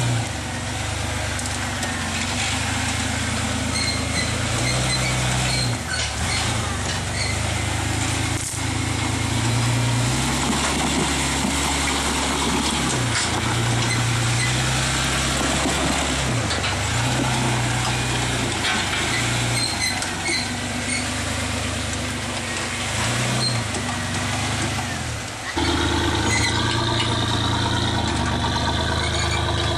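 Rock crawler buggy's engine working at low speed under load, its revs rising and falling with the throttle as it crawls over rocks and up a ledge. The sound changes abruptly about 25 seconds in.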